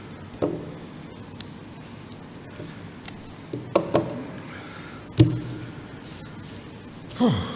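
Handling noise at a wooden lectern: a few separate knocks and thumps as papers and things are moved about, the loudest about five seconds in, with a quiet room behind. Near the end, a brief low sound that falls in pitch.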